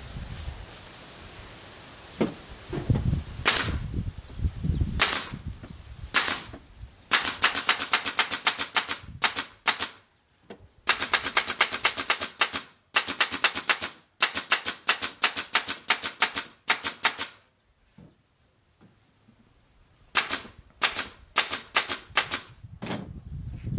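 Pneumatic nail gun firing into MDF panels: a few single shots, then rapid runs of sharp shots, several a second, with short pauses between the runs. Low thuds come from the panels being handled early on.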